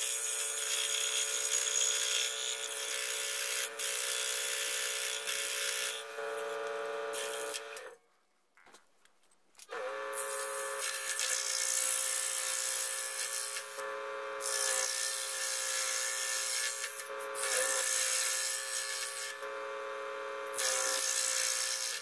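Hegner Multicut SE scroll saw running steadily and cutting across thin wooden strips. It stops about eight seconds in and starts up again about two seconds later.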